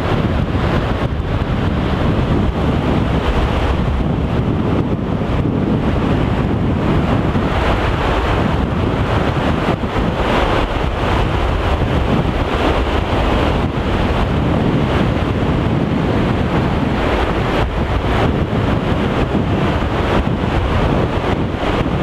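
Steady wind buffeting the microphone over the wash of shallow sea water on a tidal shore.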